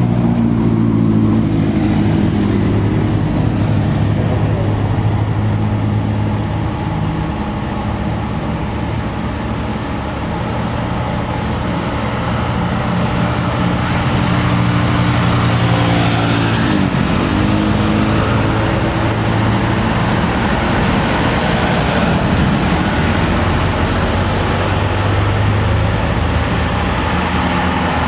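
Diesel engine of a Mitsubishi Canter dump truck running steadily under heavy load as it climbs a steep grade while towing a second, overloaded truck. The engine note dips once and recovers about halfway, amid other passing road traffic.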